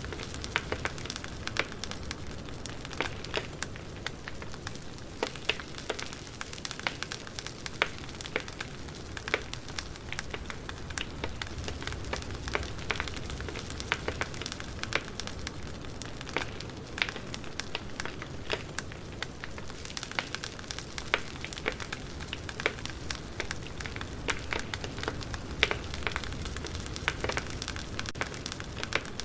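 Campfire burning: a steady hiss and low rumble with frequent sharp crackles and pops scattered irregularly throughout.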